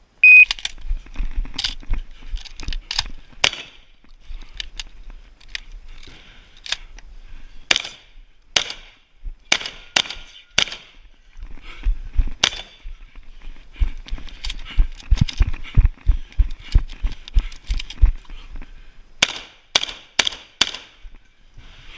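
A shot-timer start beep, then a competition shotgun fired in quick strings of shots, with the clicks and knocks of shells being loaded into the magazine tube between the strings.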